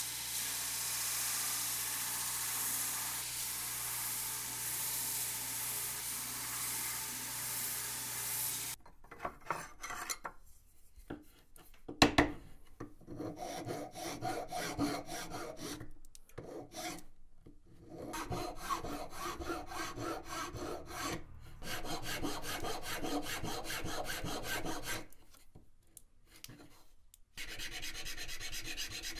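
A belt grinder sands a wooden knife handle with a steady hiss. About nine seconds in this gives way to a flat hand file rasping across the wooden handle in short runs of rapid strokes with pauses between, with one sharp knock a few seconds after the change.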